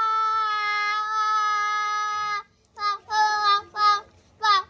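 A child's voice imitating a train horn: one long held note that sags slightly in pitch and stops about two and a half seconds in, then four short toots.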